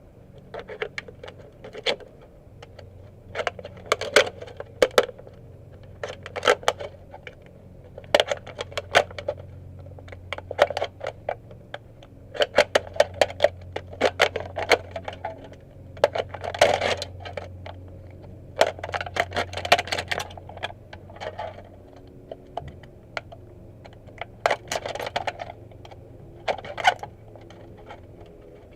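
Bursts of rapid clicking and light metallic clinking from hands and tools working on a car exhaust repair, a dozen or so short clusters over a steady low hum.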